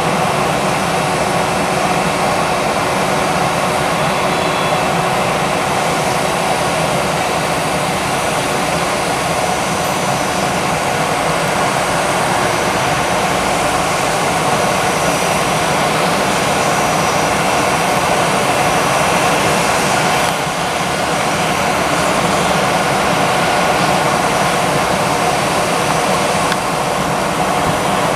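An Airbus A320's jet engines running steadily: a continuous loud rushing noise with a faint high whine over it.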